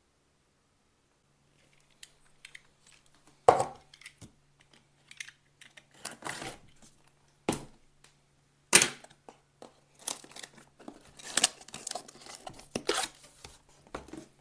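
Cardboard box being opened by hand, its seal torn and top flaps pulled open: a run of rustles, scrapes and sharp knocks starting about two seconds in, the loudest about three and a half and nine seconds in.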